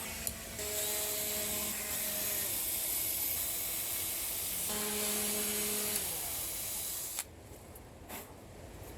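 A power tool running with a steady hiss for about six and a half seconds, then stopping.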